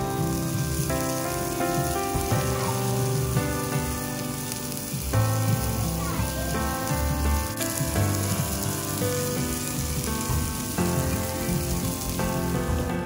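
Steak and hamburger steak sizzling on a hot iron plate, a steady hiss that stops near the end, with background music playing over it.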